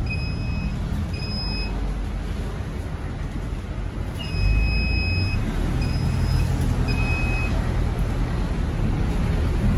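Isuzu NQR city bus heard from inside the cabin: diesel engine and road rumble, louder from about four seconds in. A high electronic beep sounds over it several times, each beep a different length.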